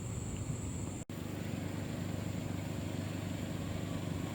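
An engine running steadily with a low rumble, briefly cut off about a second in.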